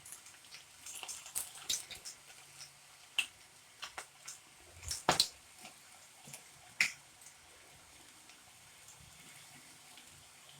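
Irregular sharp crackles and pops of ragi pakoda dough frying in hot oil, thick in the first seven seconds and then thinning to a faint background.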